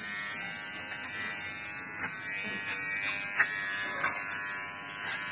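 Electric hair trimmer with a comb guard buzzing steadily as it clips short hair. Two sharp clicks stand out, about two seconds in and again about three and a half seconds in.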